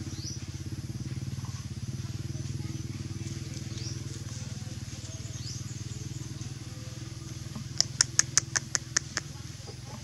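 A steady low hum of an engine running, with a few short bird chirps. Near the end comes a quick run of about nine sharp clicks, about six a second.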